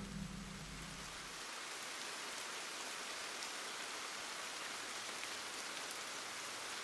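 Faint, steady rain sound effect. A piano's last notes die away in the first second or so.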